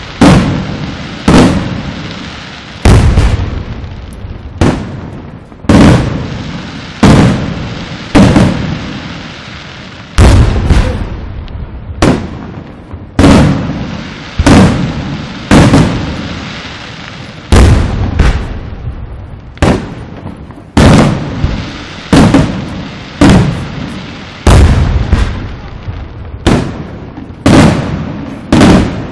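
Aerial firework shells bursting in quick succession, a sharp bang about every second or so, each followed by a rolling echo that fades before the next.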